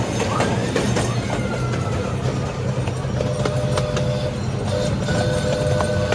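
C.P. Huntington miniature train running: a steady engine rumble, with wheels clicking over rail joints about once a second. A steady tone joins about three seconds in.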